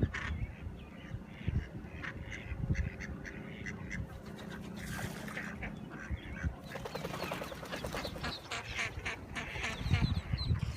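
A mother duck quacking repeatedly to call her ducklings, with the ducklings peeping high and thin. The quacking turns into a fast, dense run about two-thirds of the way in, over a low rumble.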